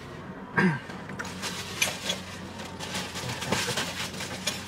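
Scattered clicks and rustles of a person rummaging and handling things, with a short falling vocal sound about half a second in, over a faint steady low hum.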